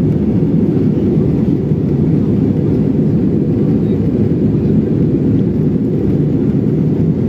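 Steady cabin noise of a jet airliner in flight: an even, unbroken low rumble of engines and airflow.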